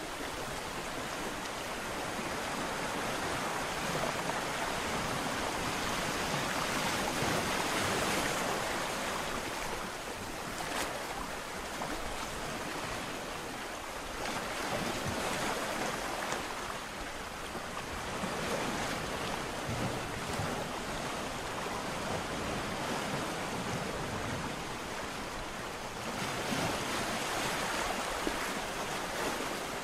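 Ocean surf breaking on a beach, a continuous wash of waves that swells and eases every few seconds.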